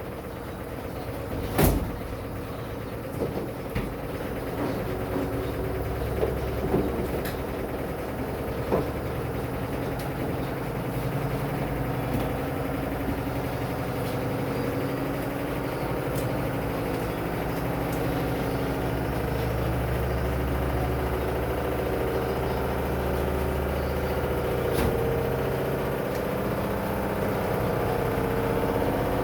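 Commercial washing machine spinning in the last of its spin cycle: a steady mechanical hum that slowly grows louder, with a sharp knock about two seconds in and another near the end.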